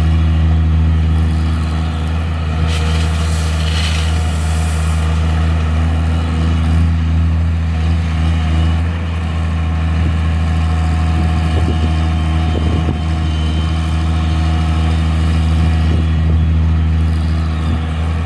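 Heavy diesel engine of a Tata Hitachi EX 130 excavator running steadily while it loads a dumper, with a brief rush of higher-pitched noise about three seconds in.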